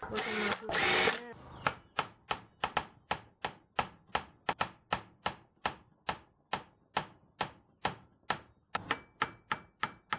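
A cordless drill runs for about a second, then a long run of sharp metallic clicks follows at about four a second as tools work at a seized brake caliper piston.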